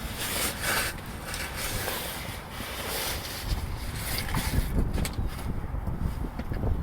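Wind rushing over the microphone, giving way about halfway through to a low rumble with a few knocks. No clear squeak stands out.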